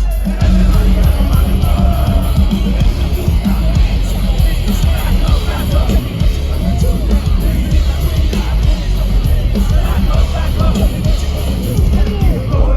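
Live rap-metal band playing loud, with heavy booming bass and drums and rapped vocals, the crowd yelling and singing along, heard from within the audience.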